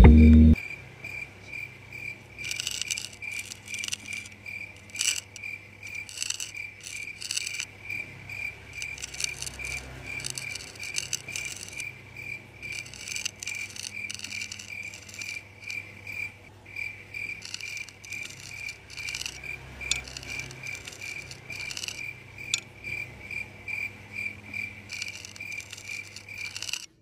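A cricket chirping steadily, about four chirps a second, with scattered light clicks and taps.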